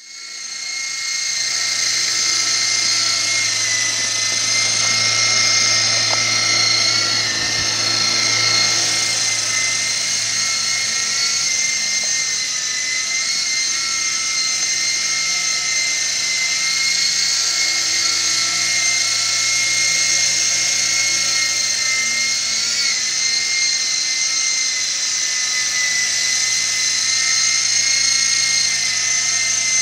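Silverlit Sky Eye toy RC helicopter flying, its small electric motors giving a steady high-pitched whine over a low hum, with small wobbles in pitch as it hovers and manoeuvres. The sound fades in over the first second.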